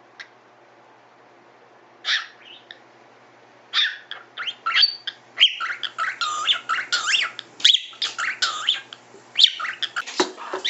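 Pet parakeet chattering and whistling: a single short call about two seconds in, then from about four seconds a rapid, continuous run of chirps, whistles and warbling pitch glides.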